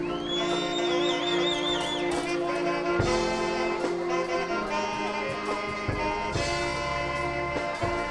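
Marching band brass and percussion playing together over a steady drum pulse. A high lead note slides up and wavers during the first two seconds.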